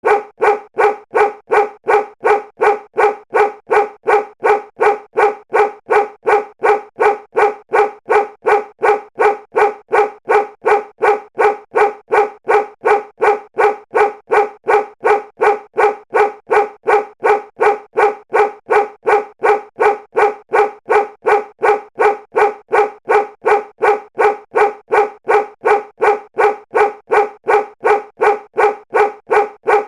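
Stock sound effect of a dog barking, one short identical bark repeated evenly about twice a second as a loop.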